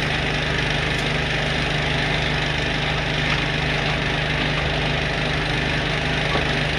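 Big Cam Cummins inline-six diesel in a 1987 Freightliner cabover idling steadily, with a steady hiss of escaping compressed air from a leak in the truck's air system.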